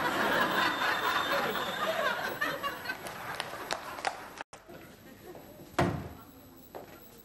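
Studio audience laughing, dying away about four seconds in. Then a single thump and a few soft footsteps in a quiet room.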